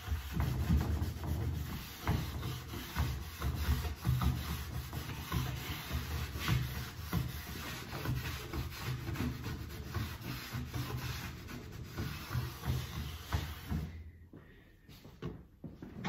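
Cloth rag rubbing along a wooden snooker cushion rail in uneven strokes, wiping off excess glue. The rubbing stops about two seconds before the end.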